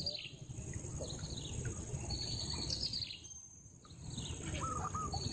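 Birds calling with repeated short chirps, some falling in pitch, over a steady high insect drone and a low rushing background noise.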